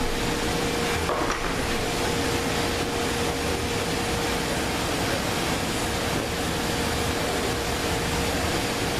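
Steady mechanical background noise, like a fan or air handler running, with a faint steady hum.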